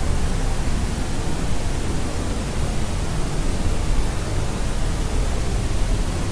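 Steady, unchanging white noise: an even hiss with its weight in a deep rumble at the low end.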